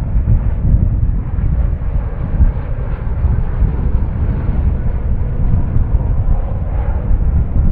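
Jet airliner engine noise: a steady low rumble.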